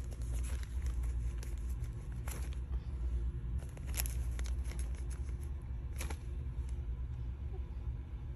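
Steady low rumble of a car heard from inside the cabin, with a few sharp light clicks about two seconds apart.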